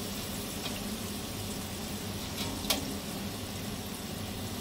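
Potato slices frying in hot oil in a wok, a steady sizzle, with one sharp click a little under three seconds in.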